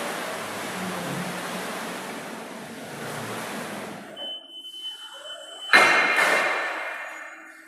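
Forklift at work: a steady hiss that fades out over about four seconds, then a thin high tone for about a second and a half, cut off by a sudden loud bang that rings and echoes for over a second.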